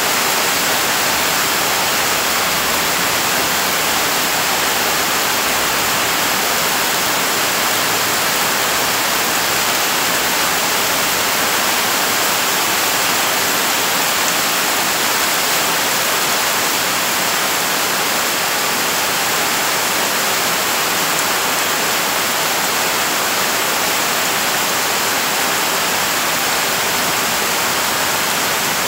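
Rain pouring steadily on banana plants, grass and muddy ground: an even, unbroken hiss.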